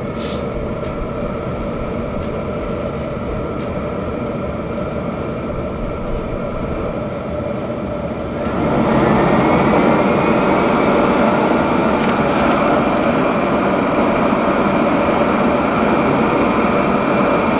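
Filtrabox ExpandX fume extractor's blowers running through their airflow calibration: a steady rushing hum with a faint whine. About halfway through they step up louder with a rising whine as the blowers speed up. At the very end they begin to wind down.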